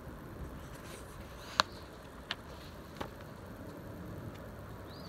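Steady low outdoor background noise with three short clicks about a second and a half, two and a quarter, and three seconds in, from a paperback picture book being handled.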